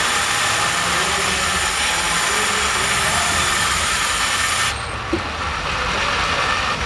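Competition robot's motors and drivetrain running, heard from the robot itself, a loud steady mechanical hiss and hum over arena noise. The high hiss drops away sharply about five seconds in, leaving a lower rumble.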